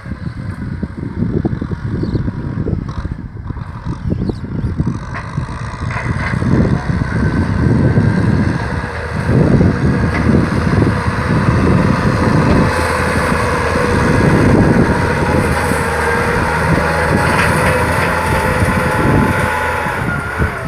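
Kubota tractor's diesel engine working under load while ploughing a rice field, a heavy uneven rumble with a steady whine above it. It grows louder about seven seconds in.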